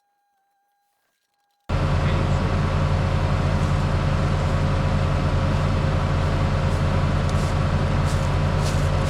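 Near silence with a faint steady tone, then about two seconds in a heavy machine's diesel engine cuts in abruptly and runs steadily and loudly.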